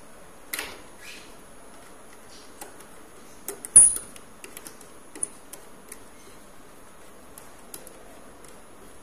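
Small metallic clicks and taps as a coaxial cable connector is fitted onto a port of an RF trainer board and its nut screwed down, the loudest click a little under four seconds in.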